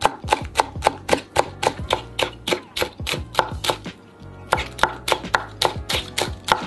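Chef's knife slicing green onions into thin rings on a bamboo cutting board: quick, even chops about four a second. The chopping pauses briefly a little past halfway, then resumes.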